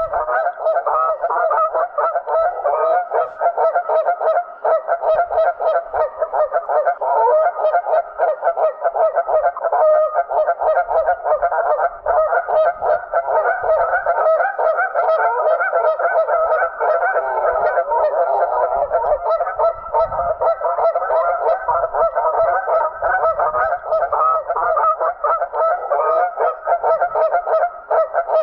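Many geese honking together, a dense chorus of overlapping honks without a break.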